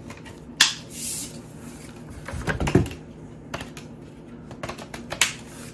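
Plastic parts of a cordless stick vacuum being handled and fitted together: a few sharp clicks, one early and one near the end, with rustling and light knocks between.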